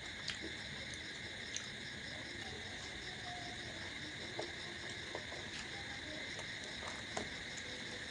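A steady chorus of chirping insects, with a few brief clicks and smacks of someone eating close to the microphone.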